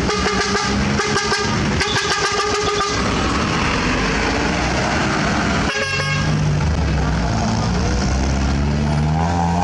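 Truck horn sounding in quick repeated toots for about three seconds, and once more in a short burst about six seconds in. After that a truck engine revs up, its pitch rising.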